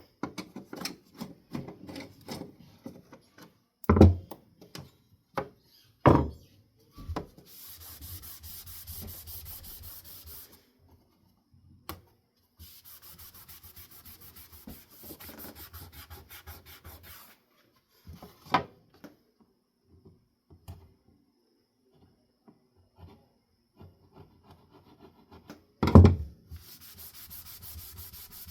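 Rapid back-and-forth rubbing on a wooden ceiling fan blade, working off a spot of paint, in three runs of several seconds each. Clicks and a few sharp knocks come between the runs, the loudest about four seconds in and near the end.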